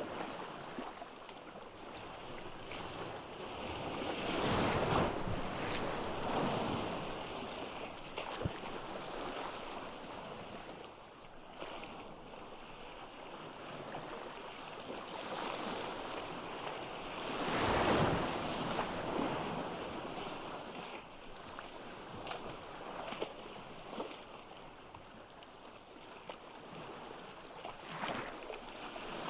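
Ocean surf breaking on a beach: a steady wash of water that swells and recedes, with two larger waves crashing about five seconds and eighteen seconds in.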